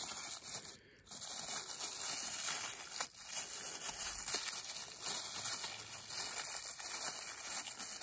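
Clear plastic packet of crackling-ball fireworks crinkling and rustling as it is handled, with a few small ticks.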